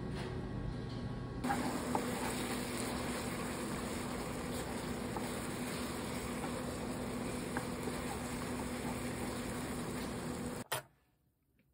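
Instant stir-fry noodles in sauce sizzling in a pan on an induction cooktop while being stirred with chopsticks, a steady hiss that starts about a second and a half in and cuts off suddenly near the end.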